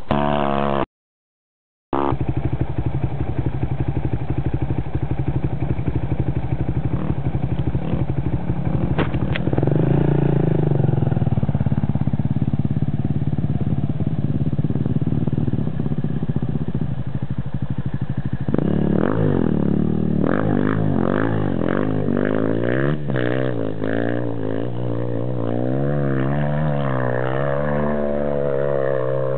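Enduro dirt bike engines running under load on a steep hill climb, cut by about a second of total silence near the start. From about two-thirds of the way through, the engine note rises and falls repeatedly as the throttle is worked.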